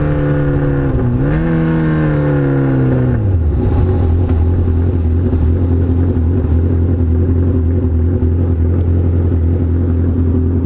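Kawasaki Z1000 inline-four through loud Danmoto XG-1 slip-on mufflers, its note falling as the bike slows, with a brief dip and recovery about a second in. From about three seconds in it settles to a steady low idle.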